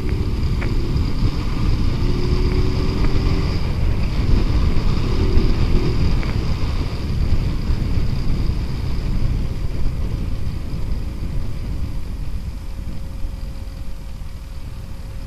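Motorcycle on the move: wind rushing over the rider's microphone, with the Rouser 180's engine running underneath. The noise eases slightly in the last few seconds.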